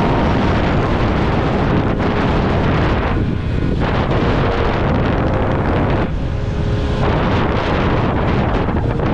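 Wind rushing over the microphone of a motorcycle moving at road speed, with the bike's engine running underneath. The hiss eases briefly twice, about three and six seconds in.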